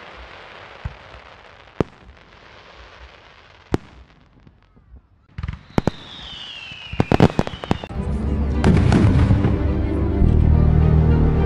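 Fireworks: a steady hiss with a few scattered sharp bangs, then a quick cluster of bangs and a falling whistle about six seconds in. A loud, bass-heavy music track starts about eight seconds in, with bangs continuing over it.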